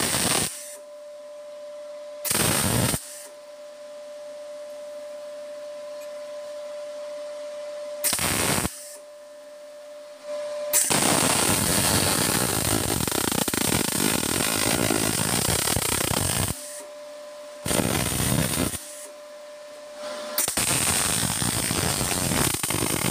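TIG welding on an exhaust tube, the arc sounding in six bursts from under a second to about six seconds long, the longest in the middle, to fill a wide gap between the tube pieces with weld. Between the bursts a steady high whine holds.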